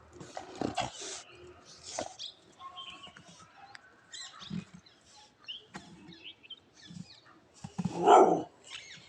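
A dog making short, irregular vocal sounds, the loudest about eight seconds in.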